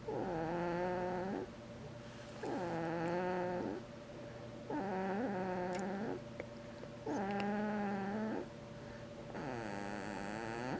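Sleeper snoring in a steady rhythm: five long snores, one about every two and a half seconds, each a drawn-out pitched tone that wavers, with quieter breathing between them.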